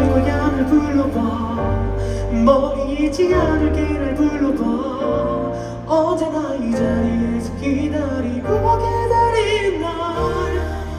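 A male singer singing live into a microphone with a band accompanying him, a wavering vocal melody over sustained bass notes that change every second or two.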